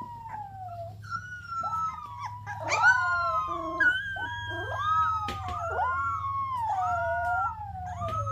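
Golden retriever puppy howling: long, wavering howls that glide up and down in pitch, at times two pitches sounding at once, over a steady low hum.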